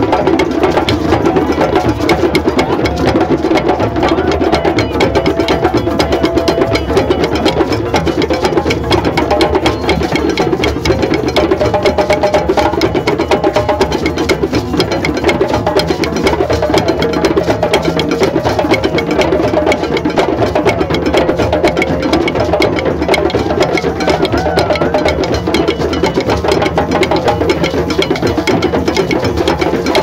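A drum circle: many drums struck together in a dense, continuous rhythm that never pauses.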